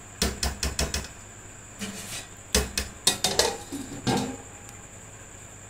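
A steel slotted spoon clanking against a steel cooking pot: a dozen or so sharp metallic knocks in uneven clusters, thickest in the first second, then stopping a little after four seconds in.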